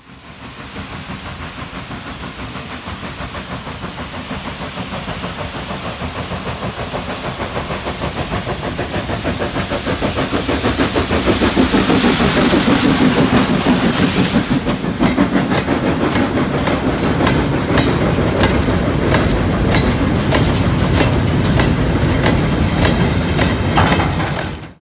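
Saddle-tank steam locomotive passing with its exhaust chuffing in a steady beat, growing louder to a peak as it draws level. After that, a line of short wagons goes by, clicking regularly over the rail joints.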